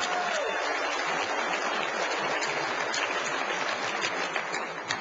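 Audience applauding: dense, even clapping that dies away near the end.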